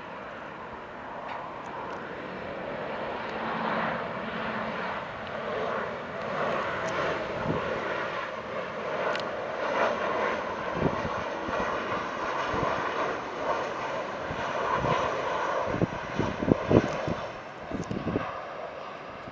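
Jet engines of a Boeing 737 Next Generation airliner on final approach, a steady rushing whine that grows louder as it passes and then eases off. A few low thumps of wind on the microphone come near the end.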